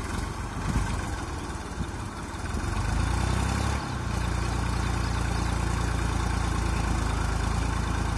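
Diesel tractor engines working as a Massey Ferguson tractor tows a Mahindra 475 DI out of deep mud. The engine note grows louder about three seconds in, shifts a second later, then holds steady.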